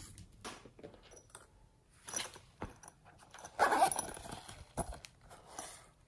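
Small zippered coin purse being handled: short clicks and rustles of its zipper and shell, with a louder rustle about halfway through as a hand works inside it, then sequin glitter shaken out into a palm.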